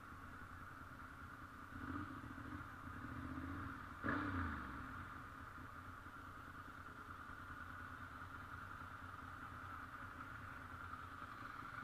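Motorcycle engine revving briefly twice, softly about two seconds in and more sharply about four seconds in, its pitch falling away after the second blip, over a steady background hum.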